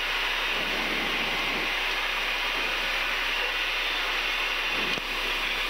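Steady rush of cockpit noise in a Cessna Citation business jet climbing just after takeoff: the engines at climb power and the airflow over the airframe.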